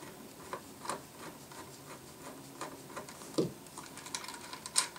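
Small scattered clicks and taps of a screwdriver and loose screws being handled and set down on a desk, with a dull knock about three and a half seconds in and a sharper click near the end.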